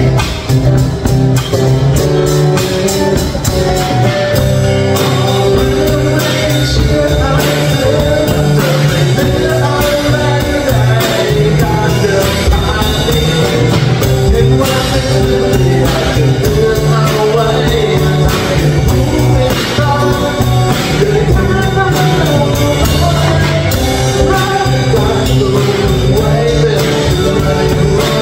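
A band playing a song live: two acoustic guitars and a drum kit, with a man singing lead into a microphone.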